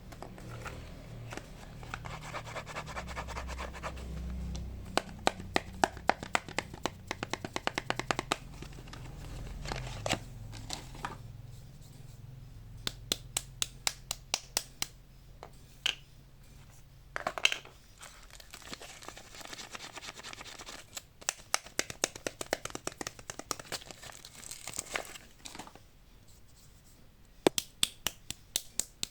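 Soap packaging being opened by hand: wrappers crinkling and tearing, with many sharp clicks and taps scattered through.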